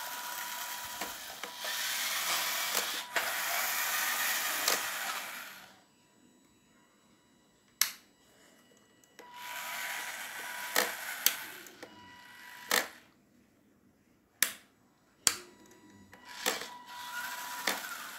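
Small DC gear motors of a homemade RC car running with a steady hum and a high whine, driving the wheels over a hard floor. They run in three stretches, stopping for a few seconds between, and several sharp clicks come in the gaps.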